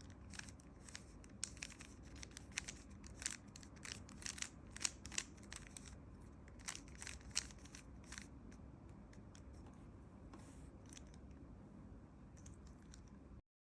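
Rubik's Cube layers being turned in quick sequences, a run of faint plastic clicks and rattles that thins out about two-thirds of the way through and stops just before the end.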